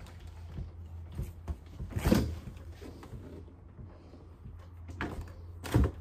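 Refrigerator and cabinet doors being handled: a heavy clunk about two seconds in, a smaller knock around five seconds, and the loudest thud near the end as the refrigerator door is swung, over a steady low hum.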